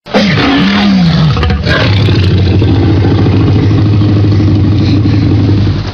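Tyrannosaurus rex roar sound effect: a loud cry that starts abruptly and bends downward in pitch over the first second or so, then settles into a long, steady low rumbling growl that cuts off near the end.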